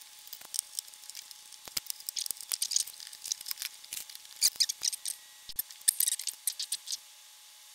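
Scattered small clicks and light rattles of hands handling a circuit board: a power-supply board being worked loose from its plug-in connectors and lifted out of a metal electronics chassis. The clicks are thickest about four to six seconds in.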